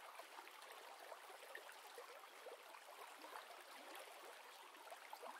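Near silence with a very faint, steady trickling sound of running water.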